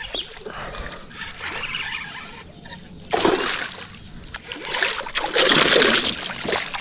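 Water splashing at the surface as a peacock bass strikes at a Borboleta topwater lure, with loud splashes about three seconds in and again near the end.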